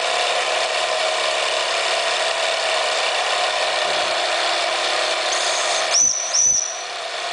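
Model steam engine with an alcohol-fired boiler running under steam: a steady hiss with mechanical running noise. About six seconds in, two short high whistle tones sound half a second apart.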